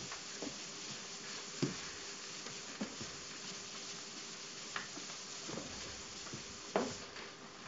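A sponge wiping across a chalkboard: a steady scrubbing hiss, with a few short knocks scattered through it, the loudest near the end.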